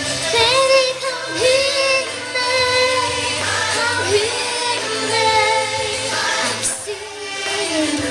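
A young girl singing a pop song over a backing track, her voice sliding between notes with vibrato.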